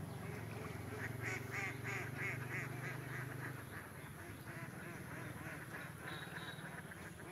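An animal calling in a rapid, even series, about four calls a second, strongest in the first half. A low steady hum runs underneath and stops about three and a half seconds in.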